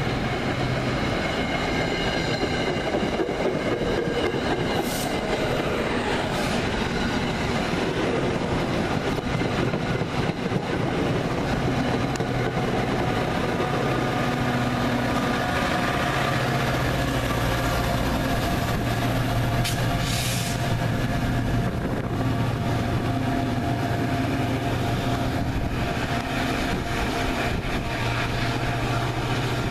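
MBTA commuter rail push-pull train rolling past: steel wheels on the rails, with a thin high squeal in the first half. Then the diesel locomotive at the rear goes by and its engine is heard running steadily.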